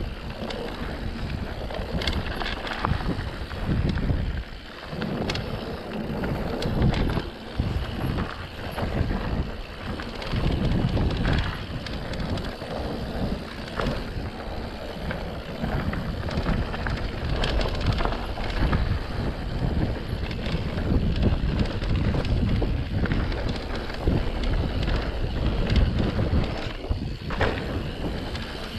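Wind buffeting the microphone of a camera on a mountain bike riding a dirt singletrack, over tyre noise and the bike's frequent knocks and rattles over bumps in the trail.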